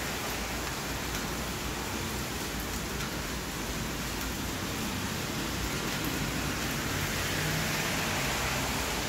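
Steady heavy rain falling on wet ground, pavement and a waterlogged field: an even hiss that grows a little louder in the last couple of seconds.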